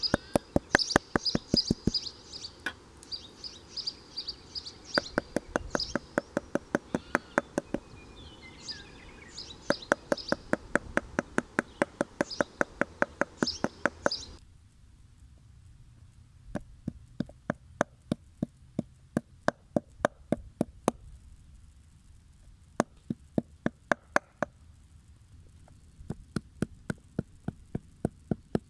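Toothed plastic meat-tenderizer mallet pounding thin slices of raw meat on a wooden cutting board: rapid, evenly spaced knocks in runs with short pauses between them. Birds chirp in the background during the first half.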